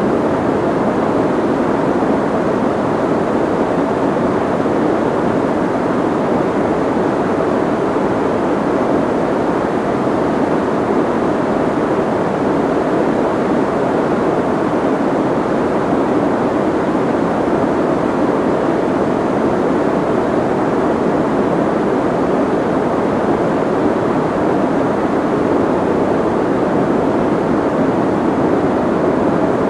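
Steady soft white noise: an even, muffled hush without sharp hiss on top.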